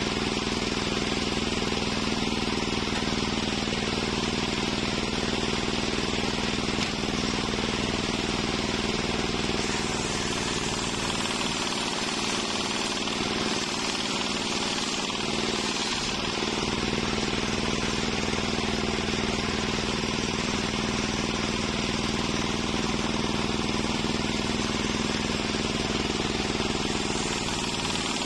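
Large sawmill circular saw running steadily and ripping lengthwise through a log of waru (sea hibiscus) wood, a constant machine hum under a continuous hiss of the blade cutting.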